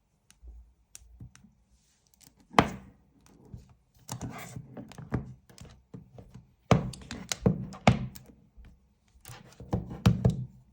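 Smartphones being handled and set down on a hard surface: a series of knocks and thunks with rubbing in between. The loudest come about two and a half seconds in, again around seven to eight seconds, and around ten seconds.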